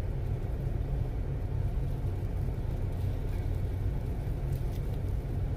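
Steady low rumble inside a parked van during a snowstorm with strong wind, with no distinct events standing out.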